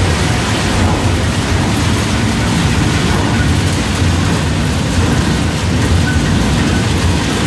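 Almond cracking and sieving line running: a steady low machine hum under a dense, continuous rattle of almond kernels and broken shells pouring over vibrating metal sieves.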